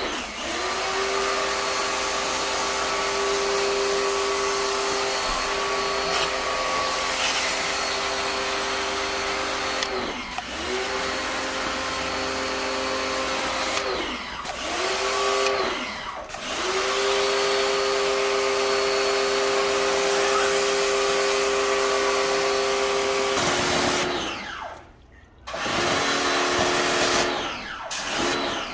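Electric motor of a cleaning machine running with a steady whine and hiss. It stops and quickly spins back up several times, and cuts out for a second or two near the end.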